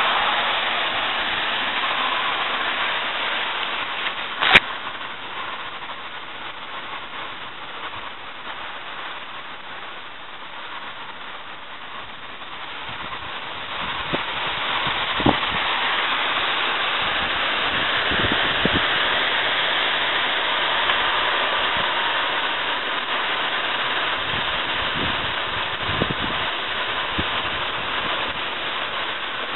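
Gusty wind rustling through tree foliage as a thunderstorm approaches, a steady hiss that swells again about halfway through. A sharp click comes a few seconds in, and a few faint knocks follow later.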